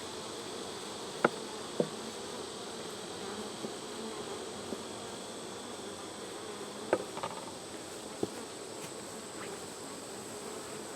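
Honeybees buzzing steadily around an open hive, with a few scattered light knocks of hive frames being handled.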